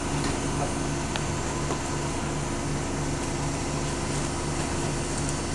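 Washing machine running: a steady mechanical hum with a low tone that pulses about three times a second.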